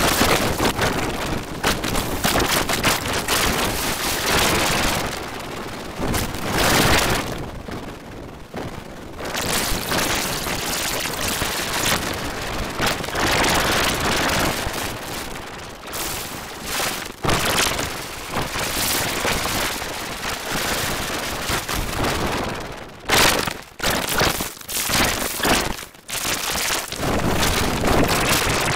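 Cartoon soundtrack mangled by heavy audio-effects processing into a loud, dense crackling noise like static or rain, with no words made out. It dips briefly about eight seconds in and several times near the end.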